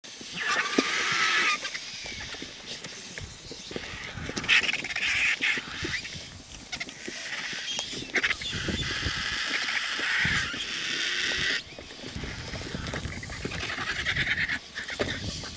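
A crowd of white-backed vultures squabbling at a carcass, giving harsh squealing and hissing calls in repeated bursts, with rustling and knocking from their jostling.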